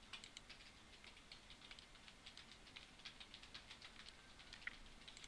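Faint, irregular light clicks and taps of a computer keyboard and mouse, several a second.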